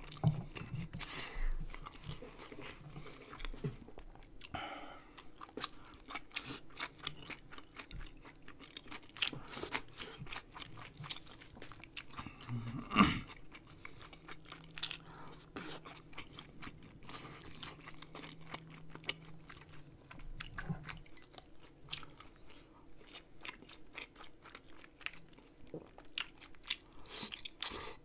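Close-miked eating of rice-cake dumpling soup with kimchi: wet chewing, biting and mouth clicks in quick succession, with one louder sharp click about 13 seconds in.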